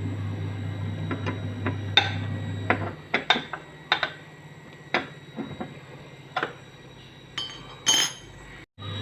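Sharp, irregular clicks, knocks and clinks of hard parts and a hand tool as a front-loading washing machine's door handle is taken apart or fitted. A low steady hum under them stops about three seconds in.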